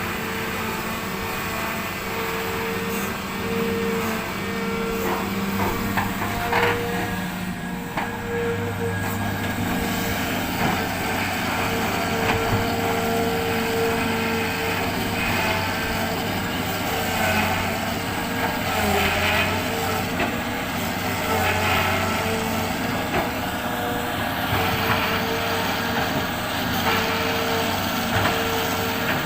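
Hitachi excavator's diesel engine running steadily under work load, with a steady whine over the engine hum. Occasional knocks and clatter from the machine at work.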